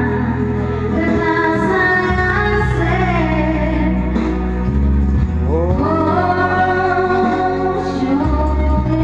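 Music with a woman singing over a steady low bass accompaniment; about five and a half seconds in her voice slides up into a long held note.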